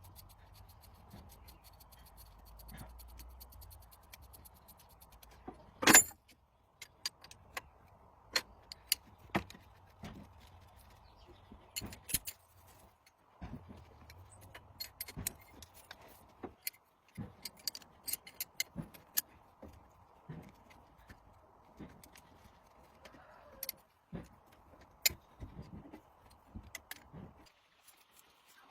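Irregular metallic clinks and taps of hand tools and engine parts being handled during diesel engine restoration work, with one louder knock about six seconds in, over a faint steady hum.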